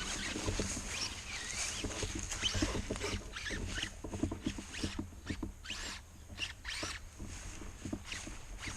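Electric RC mud truck driving through thick mud: a motor whine that rises and falls with the throttle over a stream of small wet clicks and splatters from the tyres.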